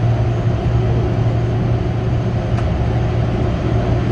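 Rubber-tyred VAL metro train running steadily through a tunnel, heard from inside the car: a constant low hum over an even rumble. A single faint click about two and a half seconds in.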